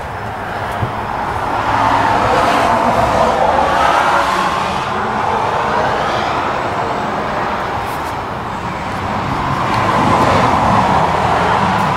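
Road traffic going past: the rushing tyre and engine noise of passing vehicles swells up from about two seconds in, eases off in the middle, and swells again near the end.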